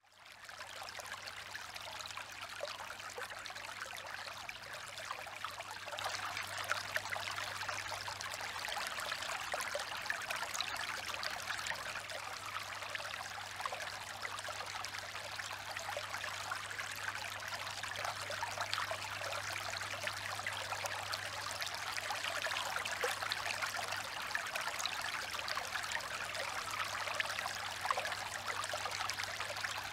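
Small tabletop water fountain trickling and splashing steadily as water spills from tier to tier into its basins, with a low steady hum beneath. It fades in over the first second.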